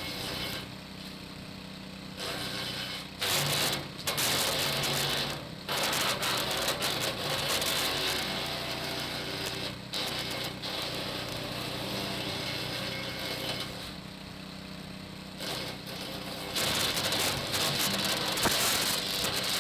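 Hecht 6208 garden branch shredder running, its motor humming steadily, with loud crackling and grinding in several stretches as branches are fed in and chopped.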